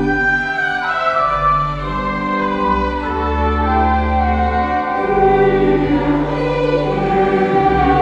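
Parish church choir singing with pipe organ accompaniment. The organ plays sustained chords over held pedal bass notes, and the sound grows fuller and a little louder about five seconds in.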